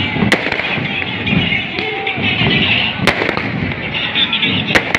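Staged battle gunfire effects: scattered sharp bangs, one just after the start, one around three seconds in and a close pair near the end, over a crowd's voices.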